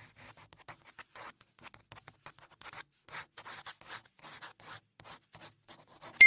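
A pen scratching across paper in many quick, irregular strokes, writing lettering. Right at the end, a single loud bright ding that rings on and slowly fades.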